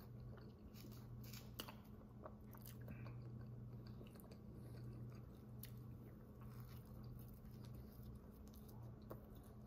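Faint chewing of a soft White Castle cheese slider, with small wet mouth clicks and a bite near the end, over a steady low hum.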